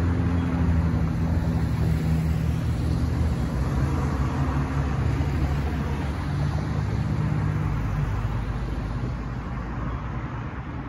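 Road traffic: cars and a pickup driving over a railroad grade crossing, with a low engine rumble that fades away toward the end.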